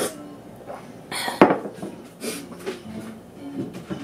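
Kitchen dishware clinking and knocking, with a ceramic mug set down on the countertop. The sharpest clack comes about one and a half seconds in, among several lighter knocks.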